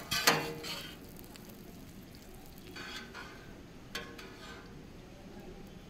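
Chicken wings frying in hot oil: a steady sizzle. Just after the start comes a short, louder sound with a voice-like pitch, and there are two fainter ones about three and four seconds in.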